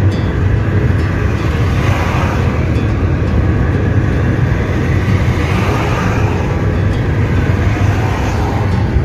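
Car driving on the road, heard from inside the cabin: a steady low rumble of engine and road noise with tyre hiss that swells a couple of times.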